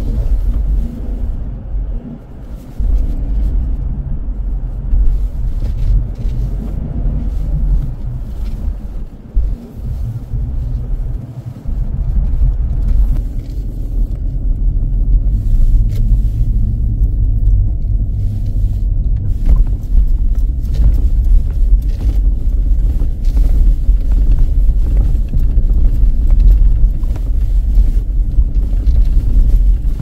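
Ford Endeavour SUV driving, heard from inside the cabin: a steady low rumble of engine and tyres on a rough road, with scattered small knocks. The rumble gets louder and steadier about halfway through as the road turns to broken, dusty gravel.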